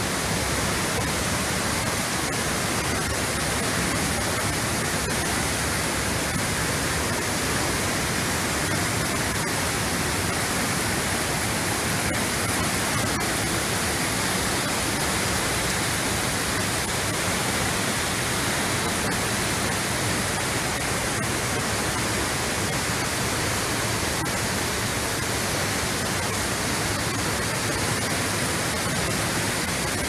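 A tall waterfall: a steady, even rush of falling water.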